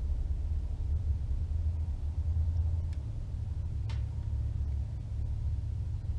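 Steady low mechanical hum, with two faint clicks about three and four seconds in.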